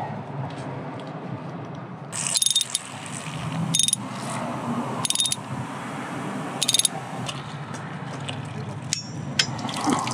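Hand ratchet clicking in four short runs as it is swung back and forth, turning a spark plug into the cylinder head of a Nissan VQ35HR V6, with a few fainter clicks near the end.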